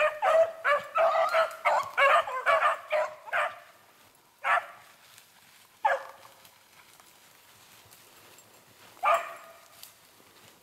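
Beagle hounds baying on a rabbit's trail: a quick run of calls, about three a second, for the first three seconds or so, then single calls at long gaps, about four and six seconds in and again near the end.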